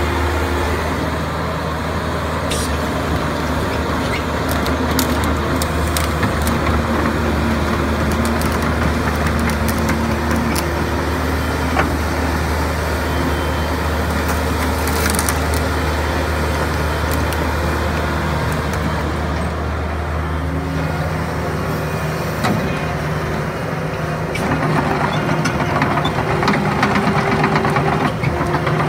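JCB JS130 tracked excavator's diesel engine running steadily with a low drone while the machine works its hydraulics and travels on its steel tracks. Near the end it grows louder, with rattling clatter from the tracks as it drives across the dirt.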